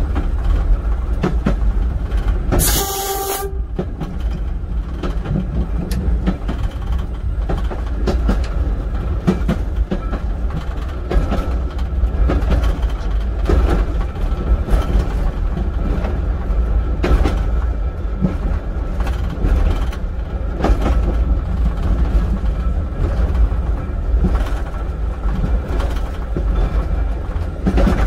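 Heritage train running along the line, heard from inside the driver's cab: a steady low rumble with scattered clicks of the wheels over the rail joints. A single horn blast of about a second sounds about three seconds in.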